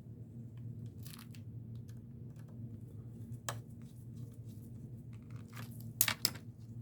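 Hands handling plastic and metal computer parts: scattered small clicks and crinkling, one sharp click about halfway and a brief burst of louder crackling near the end, over a steady low electrical hum.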